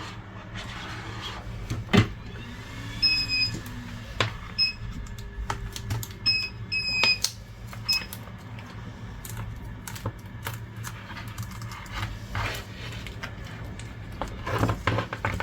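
Small repair tools clicking and tapping on the opened iPad's internals as a flex cable is worked loose, with several short high peeps between about three and eight seconds in, over a steady low hum.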